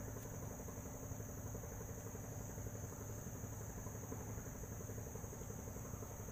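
A steady, unbroken high insect drone over a low, even engine-like rumble, with no sudden sounds.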